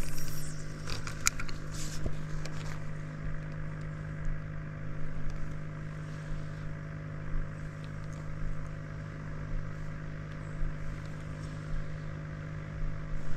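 A small motor humming steadily at one low pitch, with a few sharp clicks and light knocks in the first couple of seconds.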